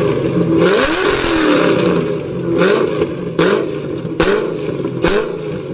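V8 engine revved in a series of short throttle blips, each rising quickly in pitch and falling back, coming closer together toward the end. A sharp crack sounds at the start of each of the later blips.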